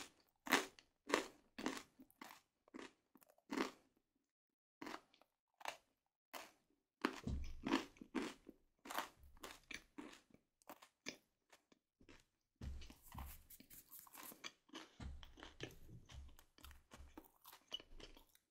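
Close-miked chewing of food. Steady chewing strokes come about two a second for the first few seconds; after a short pause, denser chewing and mouth sounds follow, with a few low soft bumps.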